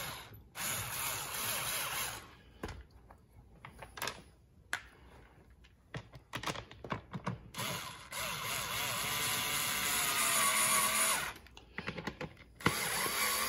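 Small cordless electric screwdriver whirring as it drives screws through a plastic chair armrest into the seat: a short run near the start, a longer run of about three seconds past the middle, and another short one near the end, with clicks and knocks of handling in between.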